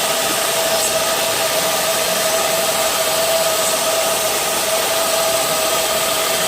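Shaft-polishing machine running steadily, spinning a Mazda 13B rotary engine's eccentric shaft against a worn 400-grit aluminium oxide belt: a constant motor whine over an even hiss of the belt rubbing the shaft. The belt is only polishing, not taking off material.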